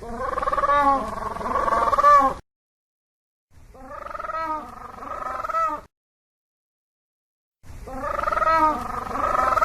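Penguin calling loudly three times, each call a run of quick repeated pitched notes that grows louder toward its end, with dead silence between the calls.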